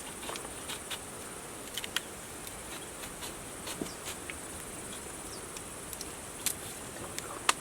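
Insects shrilling in one steady high-pitched tone, with scattered short sharp clicks and taps over it.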